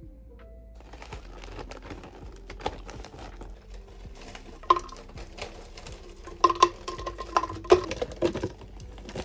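Plastic bag of frozen fruit crinkling as it is handled, then frozen fruit pieces tumbling into a plastic blender cup with a quick run of sharp knocks from about halfway through.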